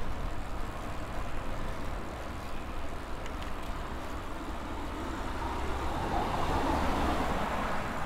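Wind rumbling on a bicycle-mounted action camera's microphone while riding, over road traffic noise that grows louder over the last few seconds.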